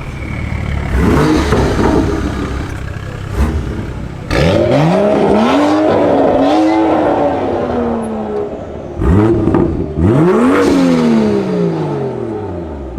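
A car engine being revved hard several times while standing, the pitch shooting up and then sinking back toward idle after each rev.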